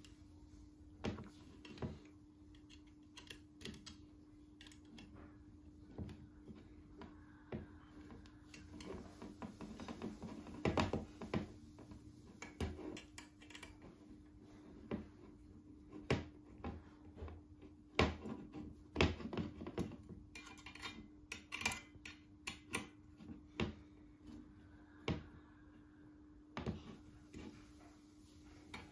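Brass rods and slotted brass brackets clicking and tapping against each other as they are fitted together by hand, in irregular light clicks with busier clusters, over a faint steady hum.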